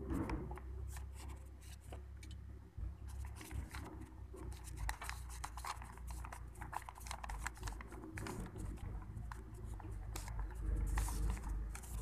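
Printed paper pages rustling and crinkling as they are handled and folded by hand: irregular crisp crackles, over a steady low rumble.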